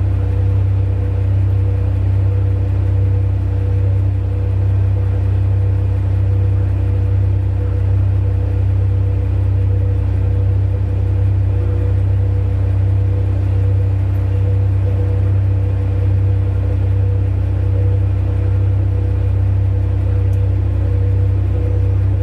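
Large diesel engines of heavy mining machinery running steadily: a deep, constant drone with a steady hum on top.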